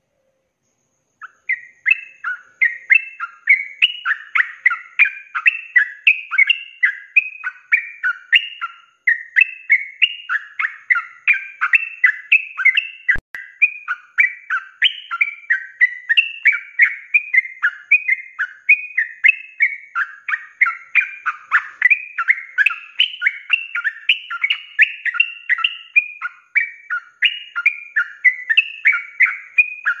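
Caged yellow-vented bulbul (trucuk) singing a long, unbroken run of rapid chattering notes, the fast non-stop 'ropel' song that bird keepers prize in a bird in full voice; it starts about a second in.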